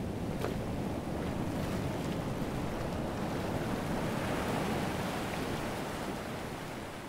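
Ocean surf breaking and washing over a rocky shore, a steady rushing that swells about four seconds in and eases near the end.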